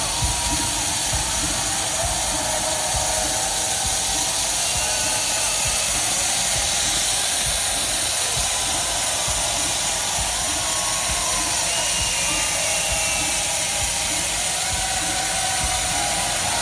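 Techno played loud over a club sound system, with a steady kick drum under a dense, hissy wash of sound.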